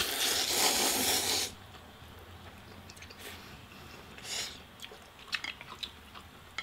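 Two people slurping saucy instant noodles at once: one long slurp for about the first second and a half, two shorter slurps a few seconds later, then wet chewing clicks near the end.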